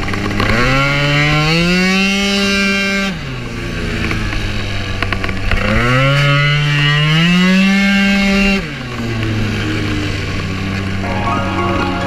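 Two-stroke engine of a 95cc Piaggio Zip race scooter at full throttle, twice: the revs climb quickly and then hold level for two to three seconds before the throttle is shut and the engine drops back to a low drone.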